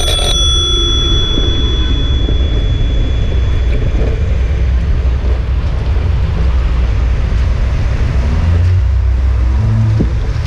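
A bicycle bell struck once, ringing out clearly and fading over about four seconds, over a steady loud low rumble of traffic and wind on the helmet microphone.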